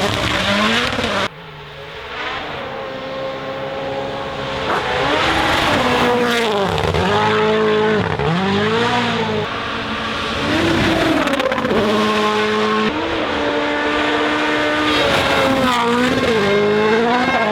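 Rally1 cars' 1.6-litre turbocharged four-cylinder engines at full attack, revs climbing through upshifts and dropping sharply under braking and downshifts. The sound changes abruptly about a second in as one car gives way to another.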